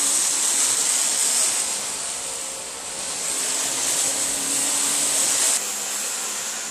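Vacuum cleaner running steadily, a whooshing motor noise with a high whine on top; it drops slightly in level near the end.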